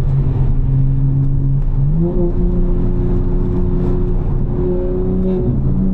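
Tuned BMW M4's S58 twin-turbo straight-six running under load at highway speed: a steady engine drone whose pitch jumps up quickly about two seconds in as the revs rise, then holds at the higher pitch, dipping and climbing again briefly near the end.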